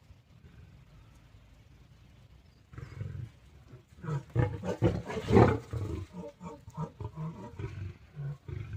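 Big cats snarling and roaring in a fight: a short growl about three seconds in, then from about four seconds a run of loud, choppy snarls and roars, loudest about halfway through.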